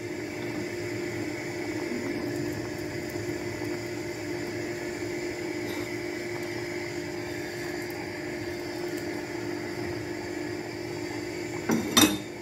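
Steady mechanical hum with a faint constant tone, and two sharp knocks near the end.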